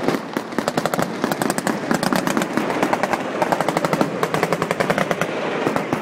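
Rapid automatic gunfire, bursts following one another with hardly a break.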